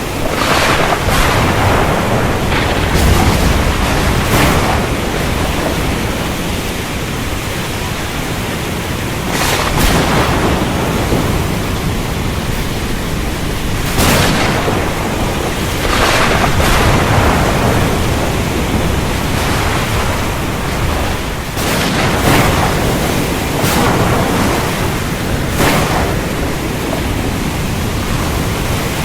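Steady heavy rain in a thunderstorm, with sharp thunder cracks every few seconds.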